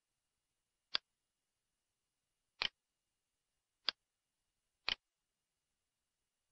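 Computer mouse clicks: four short, sharp clicks spaced roughly a second apart, some heard as a quick double click of press and release.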